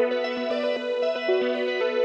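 Background music: an electronic keyboard and synthesizer tune, notes changing over a held low note, with light regular ticks keeping the beat.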